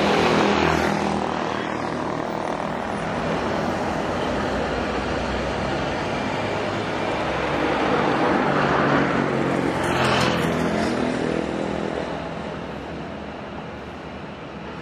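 Intercity coach bus's diesel engine running as the bus passes close by together with motorbikes, then drawing away into the terminal. The engine noise swells again about eight to ten seconds in, with a brief hissing rush near ten seconds, and then fades.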